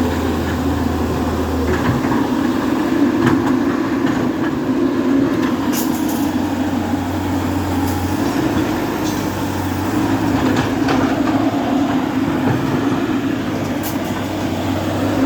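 Diesel engine of heavy construction machinery running steadily, with a few sharp clanks and knocks.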